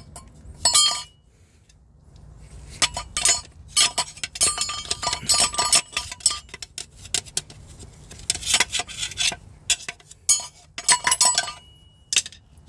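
Metal clinking and rattling as the clutch release bearing and release fork are handled and worked with a hand tool inside a BMW 120i gearbox bell housing. Sharp clinks come in quick clusters, some leaving a short ring, with a brief quiet spell about a second in.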